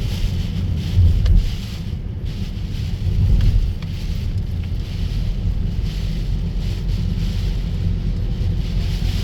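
Strong gusting wind buffeting the microphone, a low rumble that surges about a second in and again around three seconds, over the steady hiss of heavy rain.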